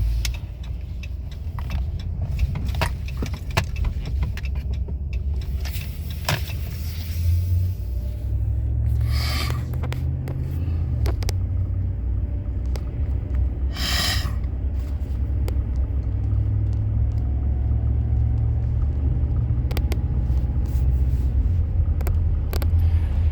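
Car engine and road rumble heard from inside the cabin as the car pulls away and speeds up on a wet highway. The engine note rises for a few seconds near the middle, and brief hissing rushes sound twice.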